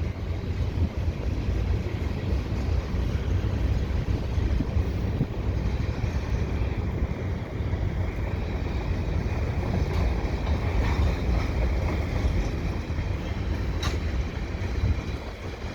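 Steady low rumble of a double-stack freight train rolling past, mixed with wind buffeting the microphone.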